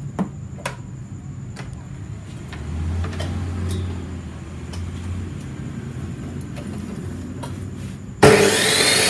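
Rakuten 2500 W 355 mm metal chop saw being readied: a few light clicks and knocks of handling, then about eight seconds in the motor switches on suddenly and runs free with a loud whine, not yet cutting, in a run the seller calls very smooth with no vibration.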